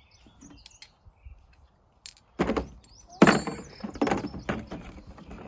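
Tools and parts knocking and rattling as they are handled in a toolbox: a few light clicks, a sharp knock about two and a half seconds in, then a longer run of clattering knocks.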